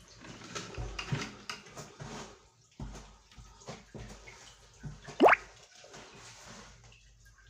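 Water dripping and small knocks echoing inside a concrete-ring well shaft, with low thumps near the start and one short, sharply rising squeak about five seconds in.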